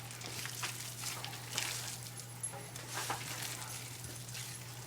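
Hands working flour into a soft, buttery bread dough on a work surface: faint scattered rustles and small taps over a steady low hum.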